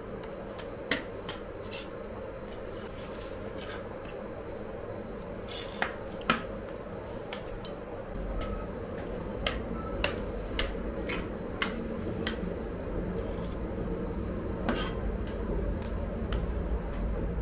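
Metal spatulas tapping and scraping on the frozen steel plate of an ice cream roll machine: scattered sharp clicks over a steady hum, with a low rumble coming in about eight seconds in.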